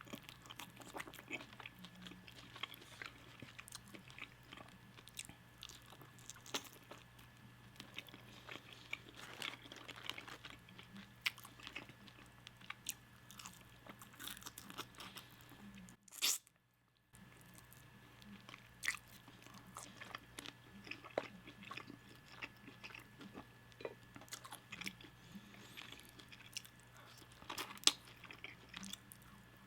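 Close-miked eating of crispy fried food: crunchy bites and wet chewing, with sharp crackles scattered throughout. The sound cuts out for about a second midway.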